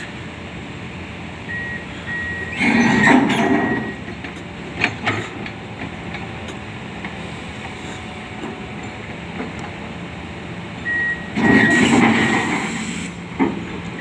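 Backhoe engine running, with its reversing alarm beeping in short runs. The engine grows louder in two surges, about three seconds in and again near the end.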